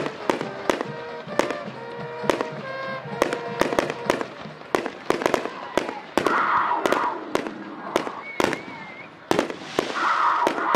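Aerial fireworks shells bursting: a running series of sharp bangs, one or two a second, with denser, louder bursts about six seconds in and near the end.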